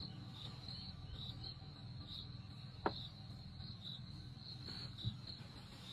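Faint chirping of insects, a high-pitched pulsing that repeats a few times a second, over a low steady rumble; a single sharp click about three seconds in and a soft knock near the end.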